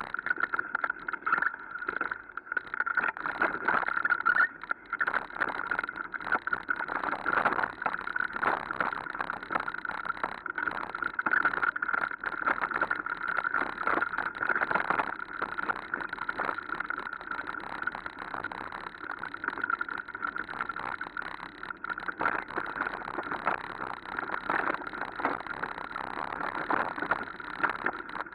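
Mountain bike riding fast over a rough, rooty woodland trail, heard through a mounted camera: continuous clatter and rattling as the bike jolts over bumps, over a steady hum.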